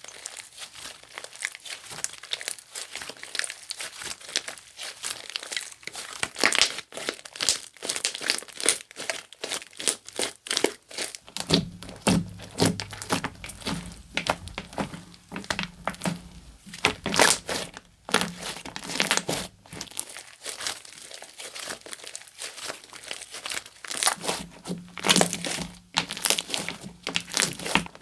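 Slime being squished and stretched by hand close to the microphone, giving dense, irregular crackling and popping clicks. A low hum comes in a little before halfway and drops in and out.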